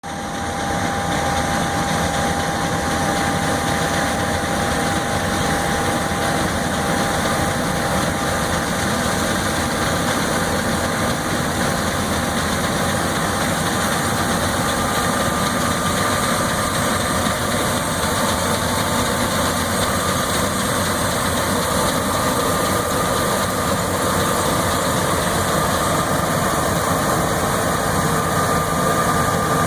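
John Deere S690 combine's 13.5-litre engine and threshing machinery running steadily while harvesting wheat. A thin whine rides on top and moves higher in pitch about halfway through.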